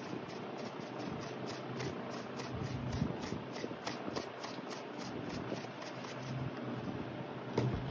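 Rustling and light scraping as a spoon scoops powdered chicken masala out of its spice packet, with many quick, light ticks throughout.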